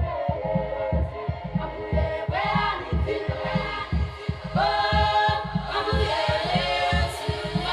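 A group of voices singing together over a steady drum beat.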